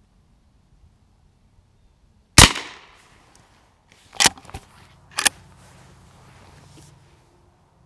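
A single shot from a smoothbore lever-action .22 LR Henry Garden Gun firing a CCI rat-shot shotshell, with a short echo trailing off. About two and three seconds later come two smaller sharp clacks, a second apart, as the lever is worked to eject and rechamber.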